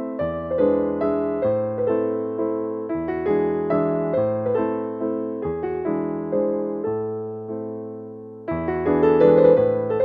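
Background piano music: a gentle keyboard melody over chords, fading somewhat before coming back louder about eight and a half seconds in.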